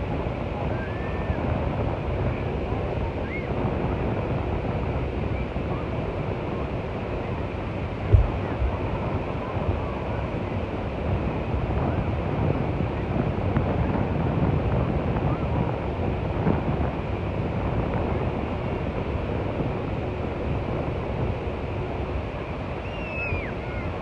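Surf breaking on a sandy beach: a steady rush of waves with some wind on the microphone. A few short high calls cut through, and there is one brief low thump about eight seconds in.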